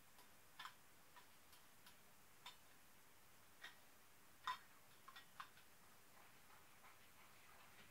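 Faint, irregular clicks of a stirring utensil knocking against a cast iron skillet as sauce is stirred, the loudest about four and a half seconds in, followed by a quick cluster of three.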